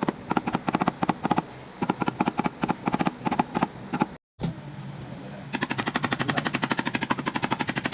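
Rapid light taps of a paintless dent repair tap-down tool, hammered against the dented tailgate panel of a Ford Everest to knock down high spots. They come in short irregular runs, then after a brief gap settle into a steady run of about eight taps a second.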